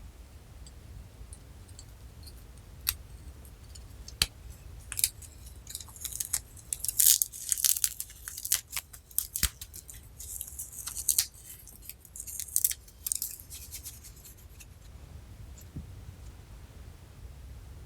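Crisp crackling and sharp clicks, like something dry being crushed or cut up close. A few single clicks come first, then a dense run of crackles from about five to fifteen seconds in.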